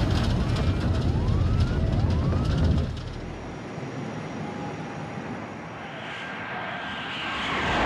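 Jet aircraft noise: a loud low rumble with two short rising whines in the first three seconds, then a quieter steady rush that swells into a loud whoosh near the end, as of a jet passing.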